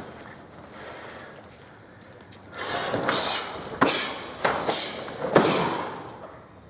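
Sharp slaps and swishes of a two-person karate kata: blocks and strikes landing and gi cloth snapping, about five in quick succession from midway on, echoing in a large hall.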